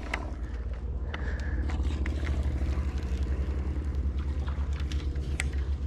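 Boat motor running at low speed: a steady low rumble with a fast, even pulse, and a few faint clicks over it.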